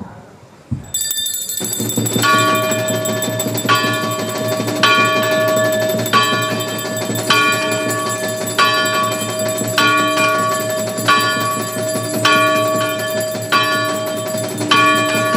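Bell ringing at a slow, even pace, about one stroke every second and a quarter, each stroke ringing on over the last. It starts about a second in, after a couple of knocks.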